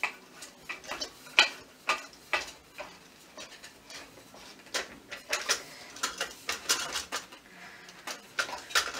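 Metal coat stand's hook section being turned and handled, its metal parts clinking and knocking irregularly. The fitting is loose and just spins round instead of tightening.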